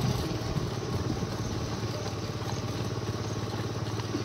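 A motorcycle engine running steadily at low speed, an even low hum.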